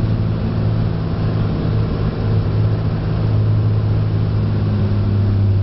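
Cessna 206's six-cylinder piston engine and propeller running steadily, heard from inside the cabin. The engine note shifts slightly about four and a half seconds in.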